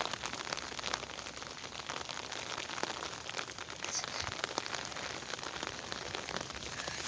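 Steady rain falling: an even hiss made of many small, irregular drop ticks.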